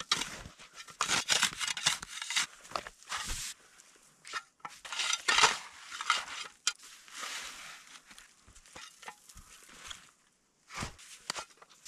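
Light, granular snow being dug and moved in irregular scraping strokes, about one every second or so.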